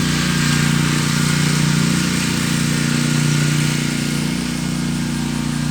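A steady mechanical hum from a running motor or small engine, holding one even pitch with a fast, fine pulse.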